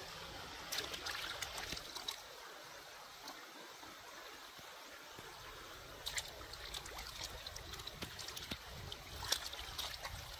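Stream water trickling steadily over rocks. Light clicks and rustles of vegetables being handled in a wicker basket come in about a second in and again from around six seconds on.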